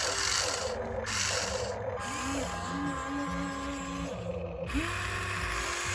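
Small electric gear motors of a radio-controlled toy excavator whining through their gearboxes, spinning up in short rising runs that hold, stop and start again, with gritty scraping noise over them.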